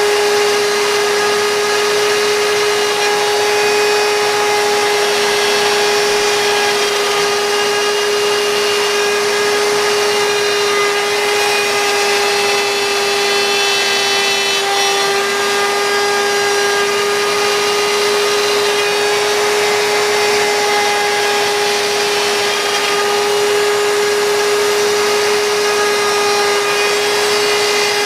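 CNC router spindle running steadily, carving wood, with a constant high-pitched whine over the hiss of the cut.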